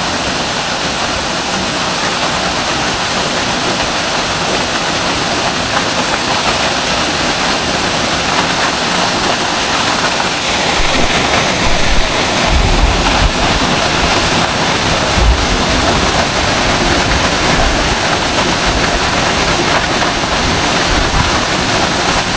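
Waiau Falls pouring into its pool: a steady, loud rush of falling water. Low rumbles come in around the middle.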